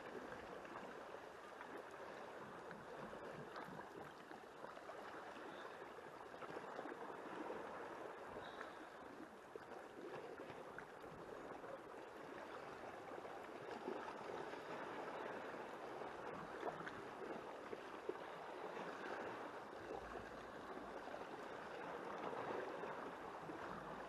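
Calm sea water lapping and sloshing gently against the rocks at the shoreline: a faint, steady wash.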